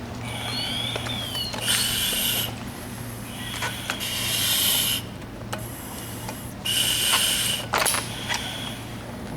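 Firefighter breathing through an SCBA face piece: a hiss from the regulator and exhalation valve on each breath, every two to three seconds, with sharp clicks between, over a steady low hum.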